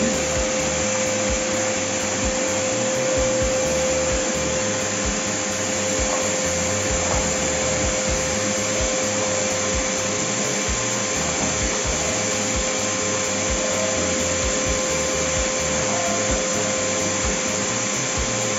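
Steady whirring noise with a constant hum, as from a small motor running, with no change in level.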